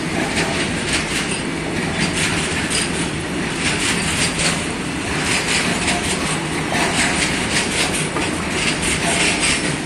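Freight train of covered goods wagons rolling past, its wheels clacking over the rail joints in a steady stream of clicks over a constant rumble.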